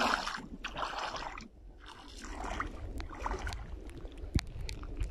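Footsteps wading through ankle-deep seawater over a reef flat: a slosh with each step, about once a second, then a few small clicks and splashes near the end, over a steady low rumble.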